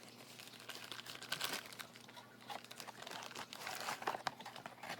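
Plastic packaging crinkling as it is handled, with irregular crackles and small ticks, busiest about a second in and again near four seconds.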